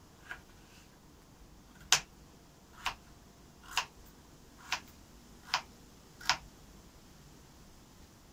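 Kitchen knife cutting a peeled potato into cubes on a wooden cutting board. The blade taps the board six times, about once a second, and the first tap is the loudest.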